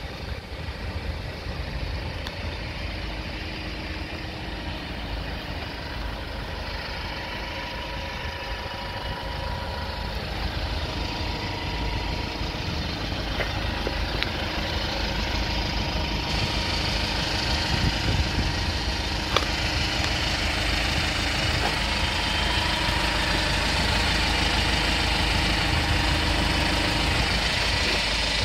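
Kia Bongo III truck's engine idling steadily, gradually growing louder.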